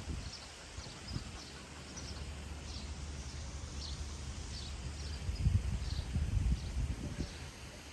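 Outdoor ambience: short high chirps repeating about twice a second over a low rumble, with a few louder low rumbling bursts about five and a half to seven seconds in.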